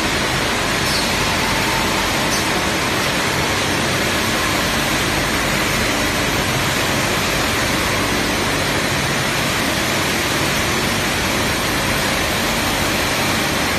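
Automatic steel pipe forming mill running, a loud, steady rushing noise with no distinct beat or tone.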